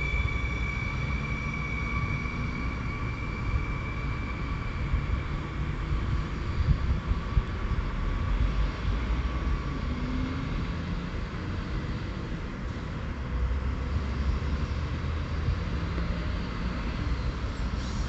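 Stadler FLIRT electric multiple unit running, with a steady two-note electric whine that fades away over the first ten seconds or so, over a continuous low rumble.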